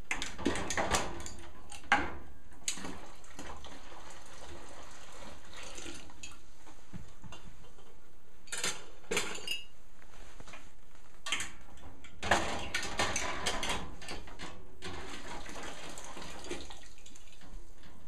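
Glass canning jars being set into a stainless steel canning pot with a wire jar rack, clinking and knocking against the metal and each other. The clatter comes in clusters: near the start, around nine seconds in, and again from about eleven to fourteen seconds in.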